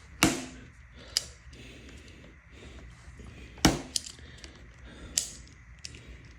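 Four sharp plastic clicks and snaps spread over several seconds, with light rustling and handling noise, as thick zip ties and plastic packaging on a new electric bike are worked at by hand and with a cutting tool that does not get through them.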